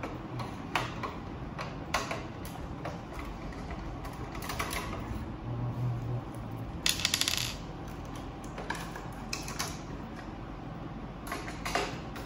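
Scattered clicks and knocks of plastic and metal copier parts being handled during disassembly, with a quick rattling run of ticks about seven seconds in. A steady low hum runs underneath.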